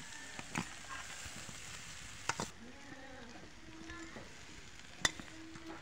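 Boiled atta noodles frying in a black iron kadai as they are tipped in and stirred with a steel spatula: a steady sizzle, with sharp metal clinks of the spatula against the pan three times, the loudest near the end.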